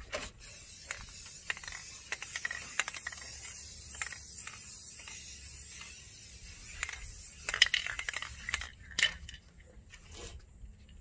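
Irregular clicks and taps from handling an aerosol spray-paint can at a truck grille, over a faint high hiss; a cluster of louder knocks near the end, then the hiss stops.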